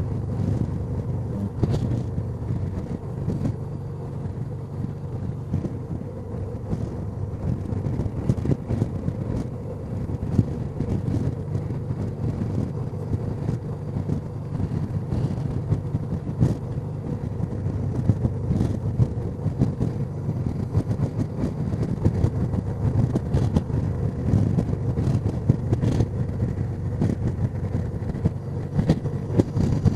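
Honda Deauville NT650V's V-twin engine running steadily at cruising speed, with gusty wind buffeting the microphone.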